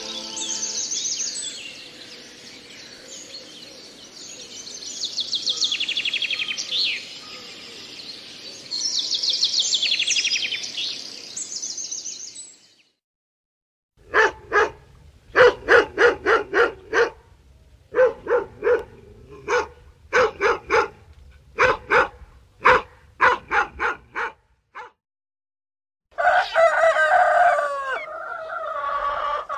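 European robin singing high trilled phrases; after a short silence a dog barks over and over in a long run of short barks; after another short silence a rooster crows near the end.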